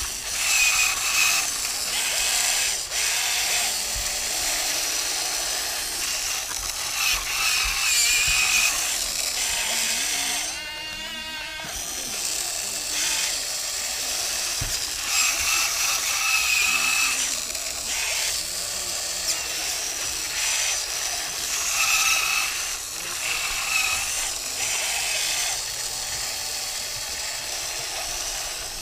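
Electric motors and gearboxes of a radio-controlled Cat 320D L scale excavator whining in short spells, starting and stopping as the boom and bucket move.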